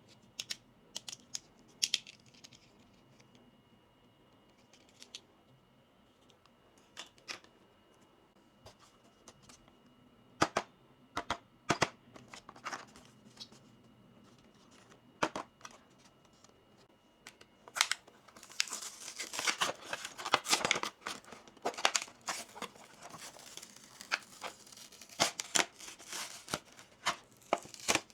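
Plastic packaging being torn open and crinkled, with scattered sharp clicks of small plastic toy pieces being handled. The crinkling is densest for several seconds past the middle.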